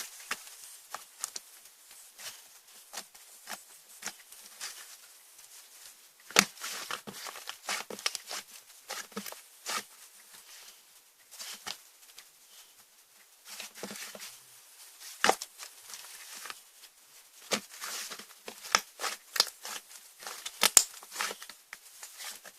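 Slime being squished and stretched by hand, giving irregular sharp clicks and pops, with a few louder pops about six seconds in and near the end.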